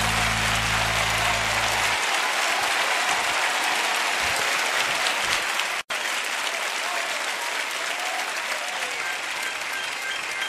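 Audience applauding as a live song ends; the music's last held low notes stop about two seconds in, leaving steady clapping, which drops out for an instant near the middle.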